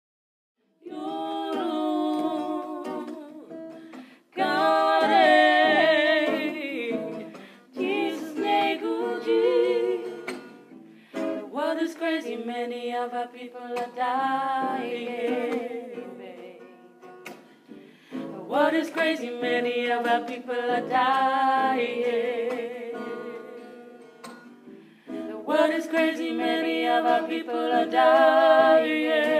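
Music: a song with a singing voice over a plucked-string accompaniment, starting about a second in and going in phrases of a few seconds.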